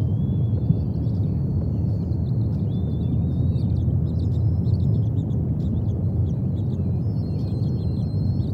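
Outdoor nest-camera ambience: a steady low rumble under faint, high-pitched bird chirps and thin whistles scattered throughout.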